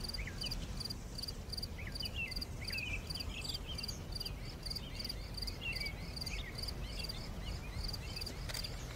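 Outdoor nature ambience: a high chirping repeating in an even rhythm, about three chirps a second, with scattered short bird-like chirps and a low rumble underneath.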